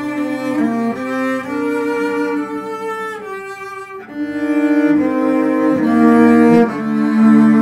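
A cello quartet bowing sustained chords that change every second or so, growing louder about halfway through.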